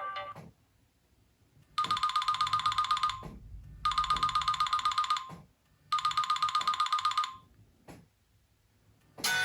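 A Nokia C7-00 ringtone: three bursts of a fast electronic trill, each about a second and a half long, with short gaps between them. The end of the previous ringtone fades out at the start, and the next ringtone begins near the end.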